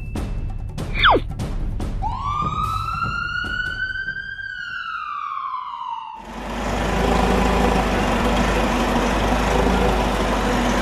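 A single police siren wail, rising and then slowly falling, played as a sound effect for a toy police motorcycle, after a short falling whistle. About six seconds in it cuts sharply to a steady engine running sound for a toy forklift.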